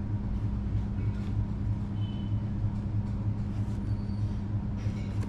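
Steady low background hum, a constant drone made of a few even low tones with a rumble beneath, unchanged throughout.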